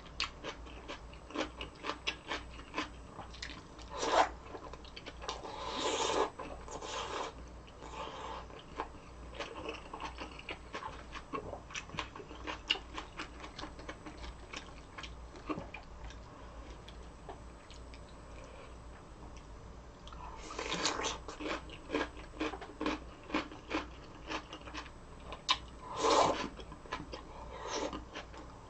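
Close-up eating sounds: a steady run of wet chewing clicks and bites, with louder bursts of slurping or crunching about four, six to seven, twenty-one and twenty-six seconds in.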